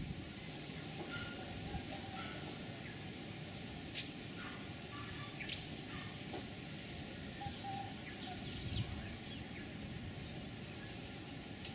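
A small bird chirping: short, high notes repeated about once a second, often in pairs, over steady outdoor background noise.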